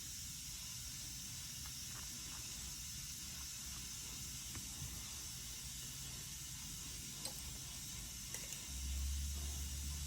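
Steady high background hiss with a few faint ticks, and a low hum coming in near the end.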